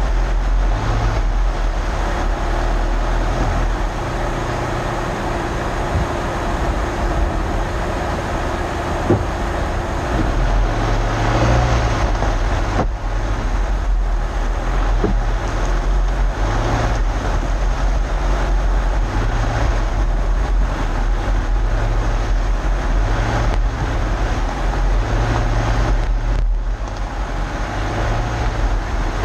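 Subaru Crosstrek driving along a rough dirt forest trail, heard from a camera tucked by the side mirror: a steady rumble of tyres on dirt and the car's running, with a few sharp knocks from bumps.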